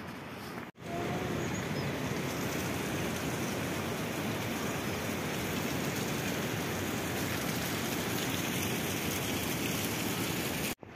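Steady rush of flowing river water. It begins abruptly about a second in and stops abruptly near the end.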